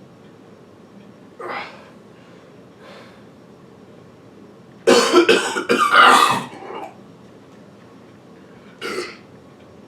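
A man's loud belching and coughing from gulping carbonated soda. A short one comes about a second and a half in, then a loud run of several about five seconds in lasting some two seconds, and another near the end.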